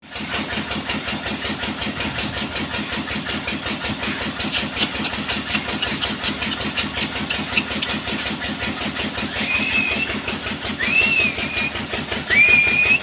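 An engine running steadily with a fast, even beat. In the last few seconds there are three high, clear calls, each rising and then holding its pitch.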